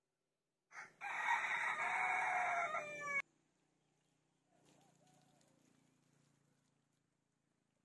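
A rooster crowing once: a loud crow of a little over two seconds that drops in pitch at the end and cuts off abruptly.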